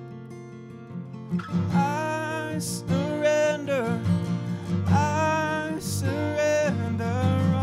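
Acoustic guitar played alone for about a second and a half, then a man's voice comes in singing a slow worship song over it in long, held notes.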